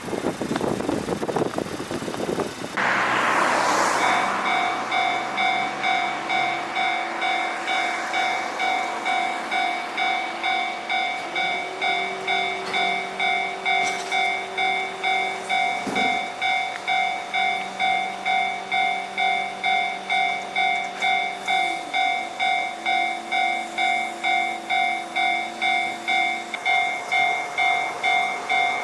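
Japanese railroad level-crossing warning bell ringing steadily, about two dings a second. A passing train's rushing noise comes before the bell starts, and train noise builds again at the very end.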